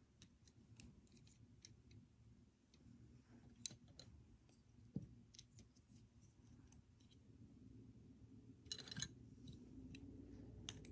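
Faint plastic clicks and taps of Lego Technic pieces being handled and pressed together: a gear on an axle and pins fitted into beams. The clicks come irregularly, with a short louder cluster about nine seconds in, over a faint steady hum.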